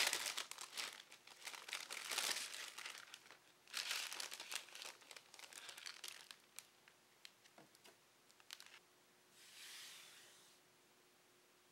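Clear plastic bags around model-kit runners crinkling and tearing as they are opened and handled, in bursts that thin out. Near the end there is a brief soft swish as a hand slides over a cutting mat.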